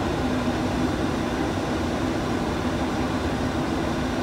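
Steady flight deck noise of a Boeing 737-800 on approach: an even rush of airflow, air conditioning and engines, with a steady low hum underneath.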